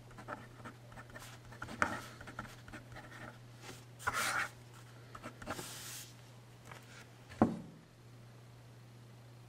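Visconti fountain pen nib scratching across paper in short strokes, with a sharp thump near the end, over a steady low hum.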